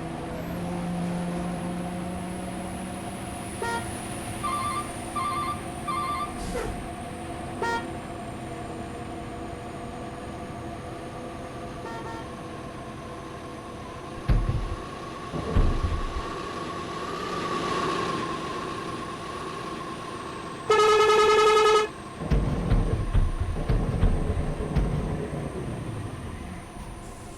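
Road traffic with vehicle engines running. A few short horn toots come about 4 to 7 seconds in. About three-quarters of the way through, one loud, steady horn blast lasts about a second, then louder vehicle noise passes.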